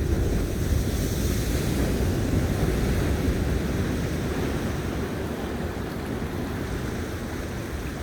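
Sea surf washing on a beach with wind buffeting the phone's microphone, a steady low rushing that eases off gradually toward the end.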